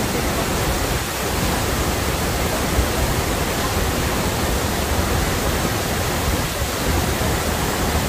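Banias Waterfall in flood, swollen by winter rain, pouring into a churning river: a loud, steady rush of water, heaviest in the low end.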